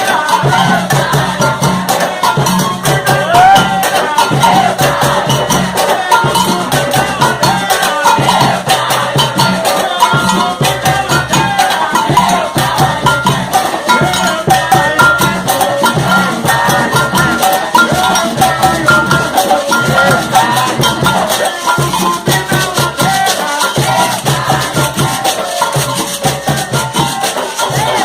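Live afoxé music: a dense, steady rhythm of shakers and drums, with voices singing over it.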